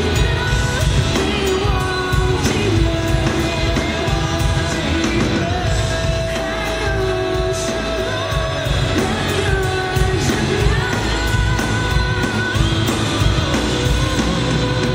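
Live band music with a male lead singer singing into a microphone, heard from far back in a large arena hall.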